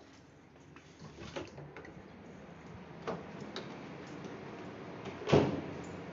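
A few scattered clicks and knocks of hard parts being handled, the loudest a sharp knock about five seconds in.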